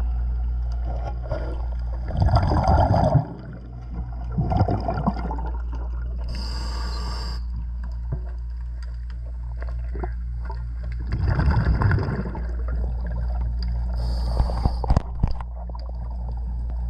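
Underwater sound of a diver breathing from an air supply: bursts of exhaled bubbles gurgle past the microphone every few seconds, with a hiss of air between them, over a steady low hum. A few sharp clicks come near the end.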